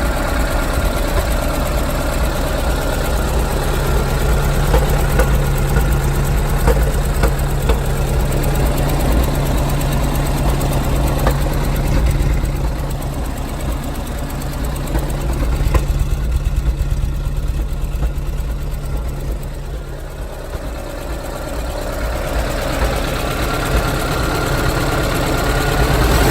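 Air-cooled Porsche 912E Type 4 2.0-litre flat-four engine running with a few sharp clicks. It sounds this way because of an exhaust leak in its exhaust system. It dips in loudness about halfway through, then comes back up.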